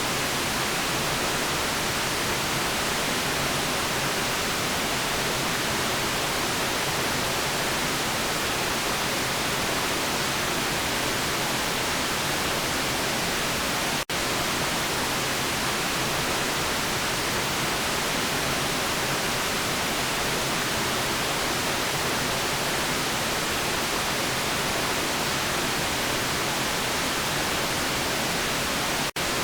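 Steady, unchanging hiss of a white-noise sleep track, dipping out for an instant about halfway through and again near the end.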